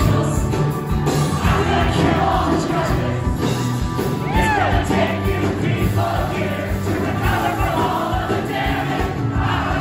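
Live indie-rock band playing a song, with drums, acoustic guitar, piano and bass under singing voices, many voices together as if the audience is singing along. A short whistle glides up and down about halfway through.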